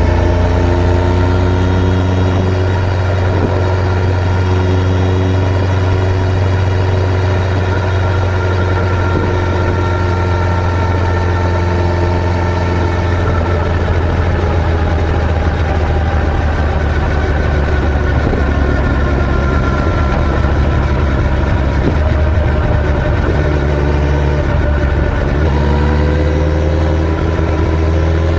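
Suzuki Hayabusa GSX1300R inline-four engine running under way, its pitch gliding gently up and down with road speed, over a steady low rumble.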